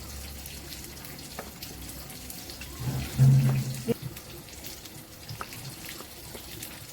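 Water running steadily, as from a kitchen tap into a sink. About three seconds in there is a brief, louder low-pitched sound lasting about a second.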